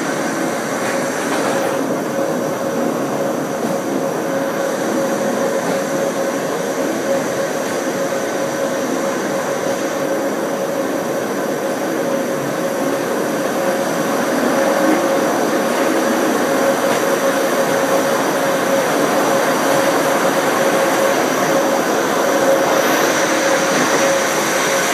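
Pilatus Railway electric rack railcar running on its cogwheel track, a steady mechanical drone with a constant whine, growing slightly louder about halfway through.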